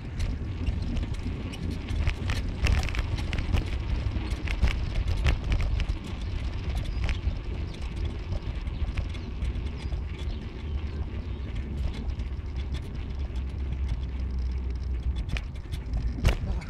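A car driving, with a steady low rumble of road and engine and irregular knocks and rattles, as over a rough road surface.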